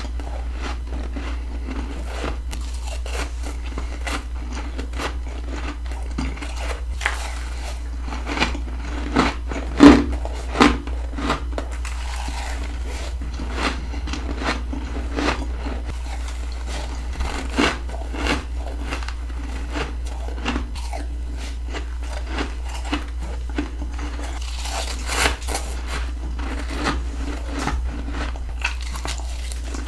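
Freezer frost, grown with a humidifier, crunching between the teeth in close, irregular bites and chews. The loudest crunch comes about ten seconds in, over a steady low hum.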